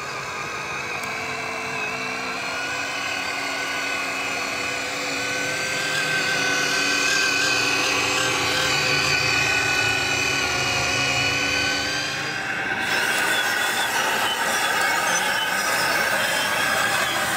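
Radio-controlled model construction machines running with a steady multi-tone whine of small electric motors and gearing: first a model Mercedes-Benz tipper truck driving, then, after a sudden change about thirteen seconds in, a model Liebherr tracked excavator working with a harsher, noisier whine.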